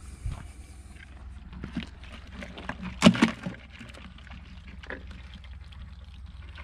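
Live blue crabs scraping and clicking against a plastic cooler, with one louder, short clatter about three seconds in.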